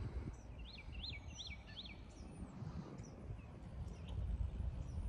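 A bird calls a quick series of four rising-and-falling chirps about a second in, with a few fainter chirps later, over a steady low rumble.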